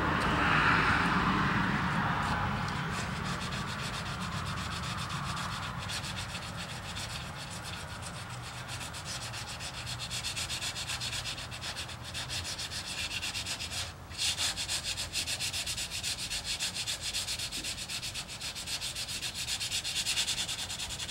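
Sandpaper rubbed by hand over Feather Fill G2 primer on a steel truck cab, in quick, even back-and-forth strokes. There is louder scuffing at the start and a short pause about two-thirds of the way through. After the pause the strokes come louder and faster.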